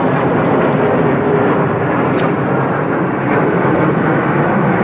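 Formation of swept-wing military jets passing overhead: loud, steady jet engine noise.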